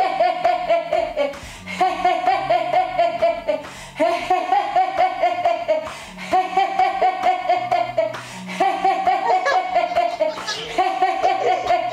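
Laughter-yoga laughter: rapid 'ha-ha-ha' laughter in six like bursts, each about a second and a half long, coming about every two seconds, over background music with a low bass line.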